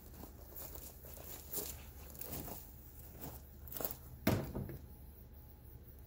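Footsteps crunching on gravel, irregular, with the loudest crunch about four seconds in, over a low steady hum.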